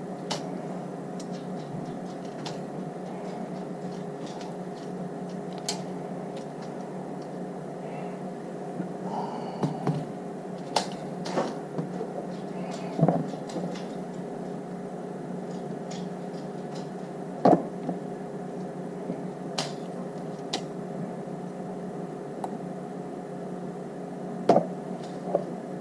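Battery-powered spot welder firing on battery cells: about a dozen sharp, short snaps at irregular intervals, a few much louder than the rest, over a steady hum.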